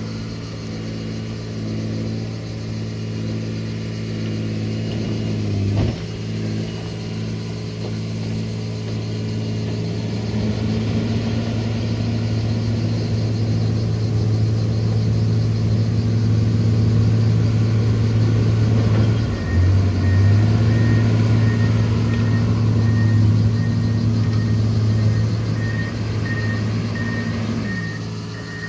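John Deere motor grader's diesel engine running steadily under load, getting louder partway through with two brief dips. About two-thirds of the way in, its reversing alarm starts beeping at an even rate.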